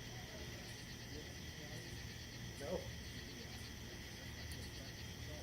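Night insects chirping in a steady, fast-pulsing chorus.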